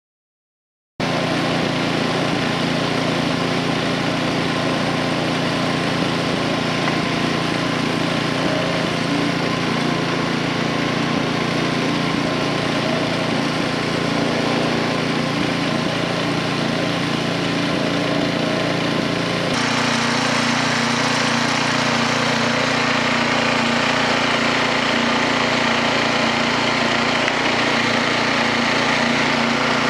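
Portable motorized winch powered by an 8 HP ex-snowblower engine running steadily as it winds in its steel cable, dragging a log. The engine note changes abruptly about 19 seconds in.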